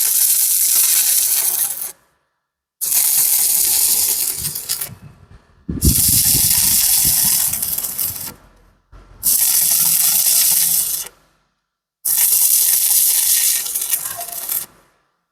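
Welding arc crackling and hissing in five separate bursts of about two to three seconds each, each cut off abruptly into silence.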